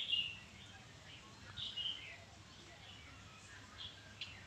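Small birds chirping: a short high chirp right at the start, another pair about one and a half seconds in, and a fainter one near the end.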